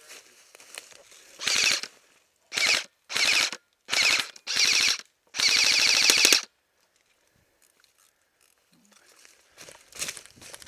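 Airsoft rifle firing full-auto in six short bursts, each a rapid string of shots, the last and longest lasting about a second. Near the end, footsteps moving quickly through dry leaves.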